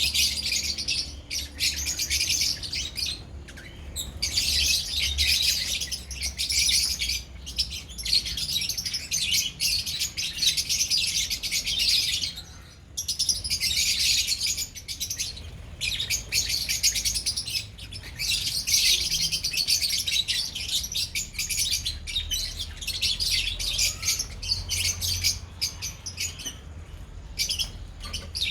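A colony of lovebirds chirping and chattering together: a dense, high-pitched twittering with short lulls every few seconds.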